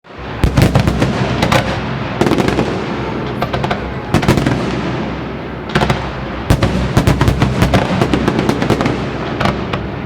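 Aerial fireworks display: shell bursts in quick clusters of sharp bangs, each followed by a short echo, over a steady low rumble.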